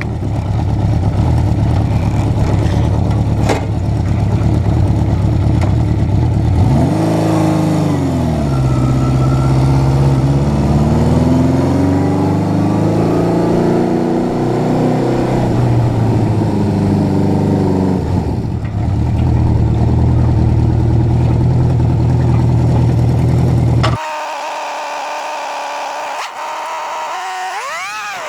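Honda CB550's four-cylinder engine running while the bike is ridden, its pitch rising and falling with throttle and gear changes. About 24 s in the sound cuts abruptly to a quieter stretch, with one more rising rev near the end.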